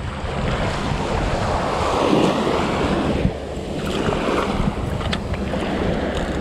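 Wind buffeting the microphone in a steady rumble, with small waves lapping at the shore.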